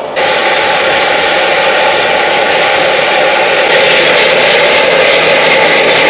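Heavy engine running steadily: a loud, even drone that starts abruptly right at the start.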